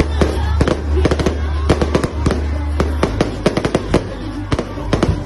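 Aerial fireworks bursting overhead: a rapid, irregular run of sharp bangs and crackles, with music and its steady low bass playing underneath.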